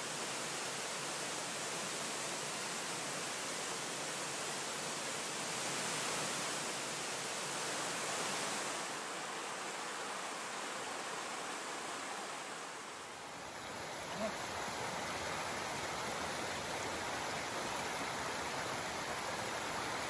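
Rushing water of a rainforest waterfall and a small cascade pouring over rock: a steady, even rush that shifts slightly about two thirds of the way in.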